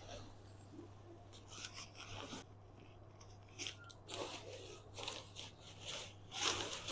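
Nylon fabric of a folded pop-up tent rustling and scraping as it is handled and unrolled, in short intermittent bursts that grow louder near the end.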